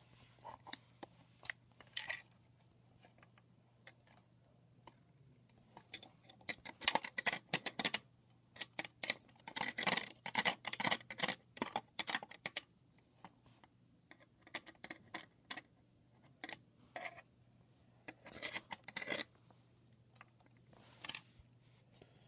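Bursts of rapid clicks and scratches from hands and tools working on a plastic alarm clock's case and circuit board, over a steady low hum. The clicking comes in clusters, the busiest stretch a few seconds in, then more scattered clicks later.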